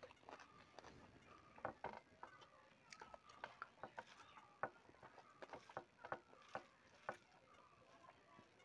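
Faint, irregular clicks and scrapes of fingers mixing rice on a metal plate.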